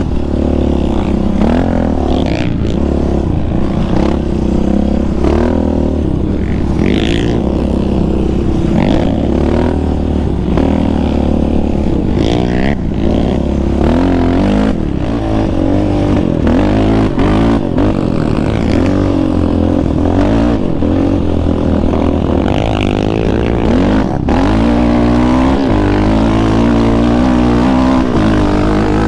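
Yamaha Raptor 700R sport quad's single-cylinder engine, through an aftermarket Monster exhaust, revving hard and easing off again and again as it is ridden over sand, its pitch climbing and dropping with the throttle and gear changes.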